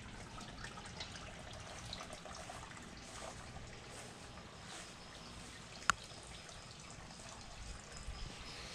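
Faint, steady trickle of water as the pool is being filled, with a single sharp click a little under six seconds in.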